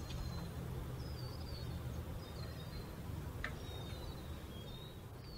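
Outdoor ambience: a steady low rumble with a few faint, short, high chirps of birds scattered through it.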